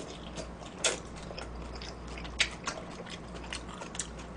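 A mouthful of mulhoe, Korean cold raw-fish soup with vegetables, being slurped off chopsticks and chewed close to the microphone: a run of small wet smacks and clicks, with a sharper smack about a second in.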